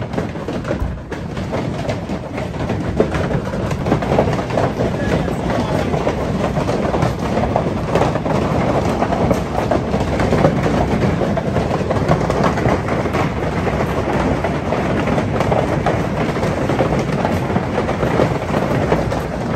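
Hail pelting the patio's metal roof: a loud, dense, steady rattle of countless small impacts.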